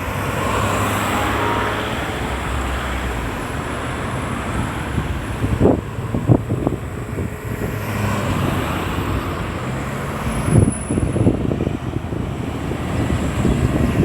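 Road traffic at a busy roundabout: cars and heavier vehicles passing with a steady engine and tyre noise that swells as each goes by, with a few short knocks about halfway through.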